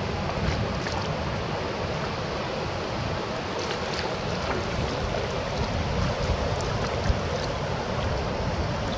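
Steady rushing of water flowing over rocks, with a few faint clicks.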